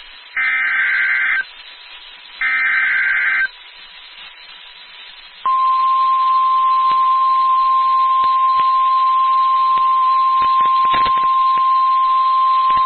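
NOAA Weather Radio SAME alert header: two one-second bursts of warbling two-pitch data tones, about a second apart, the last of three. About two seconds later the steady 1050 Hz warning alarm tone starts and holds, with a few clicks of radio static, signalling that a new warning, here a tornado warning, is about to be read.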